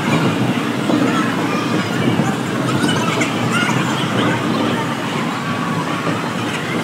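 Ice skate blades gliding and scraping on a rink surface: a steady rumbling scrape with no break, carrying a few short, high squeals over it.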